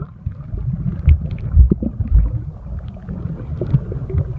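Muffled low rumble of pool water heard with the microphone submerged, with dull thuds, the loudest about one and a half to two seconds in.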